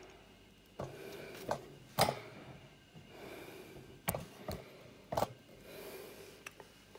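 A series of light knocks and clicks from motorcycle parts being handled while a radiator bracket is worked into its mount, irregular over several seconds. The loudest knock comes about two seconds in.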